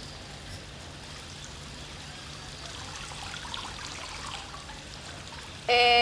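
Faint, steady running water from a garden hose. Near the end, a woman's voice starts a loud, held "hmmm".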